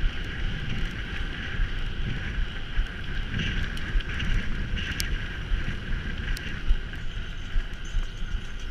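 Wind buffeting the microphone of a camera riding along on a mountain bike, over steady rolling noise from the bike, with a few sharp clicks and rattles.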